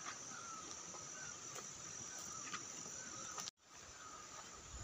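Faint outdoor ambience with a steady high-pitched insect drone and a few soft chirps. The sound drops out for an instant about three and a half seconds in.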